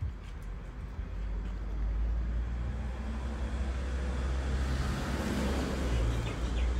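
Road traffic: a steady low rumble with a vehicle passing, its noise swelling to a peak about five to six seconds in.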